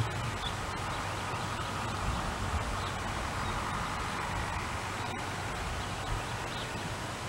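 Steady outdoor background noise with camcorder tape hiss and no clear sound event, apart from a short low bump at the very start.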